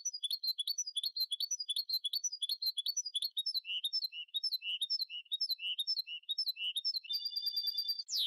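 Goldfinch × canary hybrid (mixto de jilguero) singing: a fast run of short repeated chirping notes, about three to four a second, then a steady trill about a second long near the end, closing with a quick downward slide.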